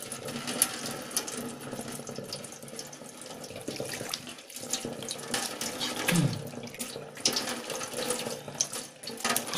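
Tap running with a thin, slow flow into a stainless steel kitchen sink, with water splashing and wet hands rubbing shampoo through hair over it.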